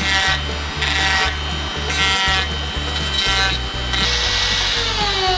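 Handheld rotary tool grinding and polishing the rusty metal trigger guard of an antique revolver, heard over background music with a steady beat. About four seconds in, a whine slides down in pitch as the tool changes speed.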